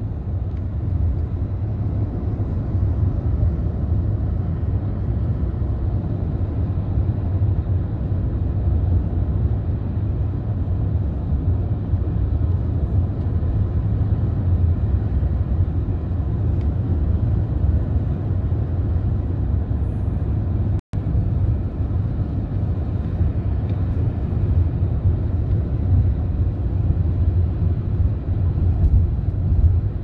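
Road noise of a moving car: a steady low rumble of tyres and engine, with no change in pace. It cuts out for an instant about two-thirds of the way through.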